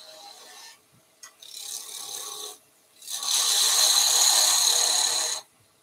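Turning tool cutting into a small wooden spindle spinning on a lathe, shaping it down to a point. The cut comes in three passes, growing louder, and the last and longest lasts about two seconds.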